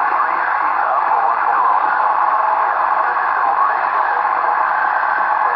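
Steady static hiss from the Superstar CRT SS-6900 CB radio's speaker in FM mode.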